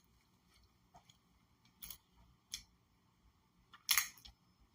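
A few short, scattered clicks and rustles over a quiet room, the loudest a small cluster near the end.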